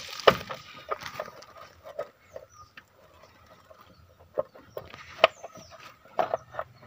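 Plastic timing-belt cover being worked loose and lifted off a car engine by hand: scattered sharp clicks and knocks, loudest just after the start and about five seconds in, with a cluster of short rattles near the end.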